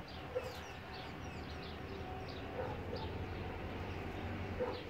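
Small birds chirping repeatedly in short, quick, falling notes, faint, with a few soft low sounds in between.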